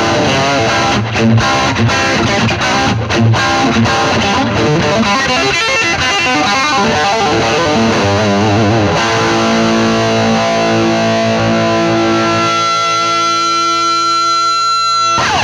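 Distorted electric guitar played through a Marshall Origin 20 valve combo amp: quick riffing for the first half, then a chord struck and left to ring out, struck again just before the end.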